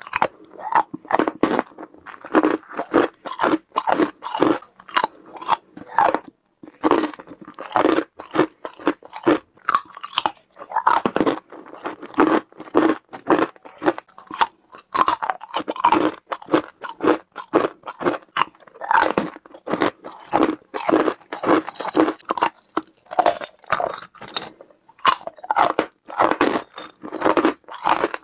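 Hard ice chunks being bitten and chewed close to a microphone: a quick, irregular run of sharp crunches, broken by a couple of short pauses.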